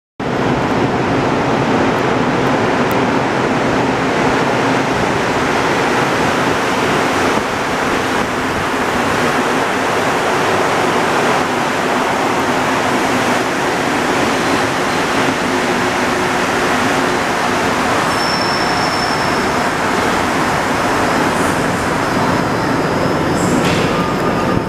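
Montreal Metro MR-73 rubber-tyred train pulling into the station alongside the platform: a steady, loud rush of running gear and motors, with a brief high-pitched tone about eighteen seconds in.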